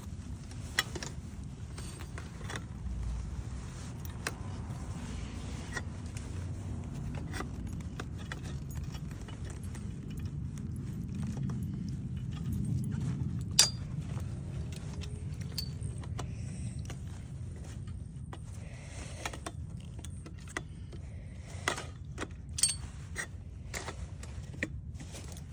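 Scattered small clicks and metallic clinks of parts being handled, over a steady low rumble; one sharper click about halfway through.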